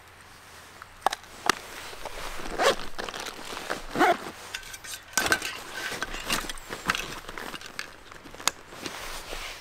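A nylon tactical backpack being handled and packed: fabric rustling, with many short, sharp clicks and knocks.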